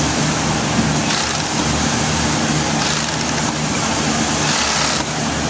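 Industrial cover stitch sewing machine running while hemming a shirt, a steady motor hum with the sewing noise swelling in short runs over a constant machine din.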